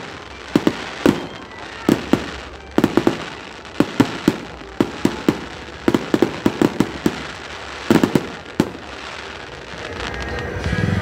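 Fireworks display: aerial shells and cracker-like reports bang in a rapid, irregular string, several a second, with crackling between them. A louder, denser volley builds near the end.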